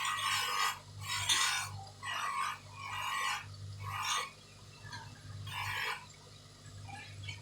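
Hand rubbing strokes on a watch, about six in a row, each about half a second long, over a low steady hum.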